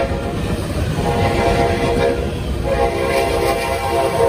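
Amtrak train horn sounding as cab car 90221 comes past. It sounds at the start, drops back, then returns in a long, loud blast from about two and a half seconds in. Under it runs the steady rumble and wheel noise of a freight train of covered hopper cars rolling by on the next track.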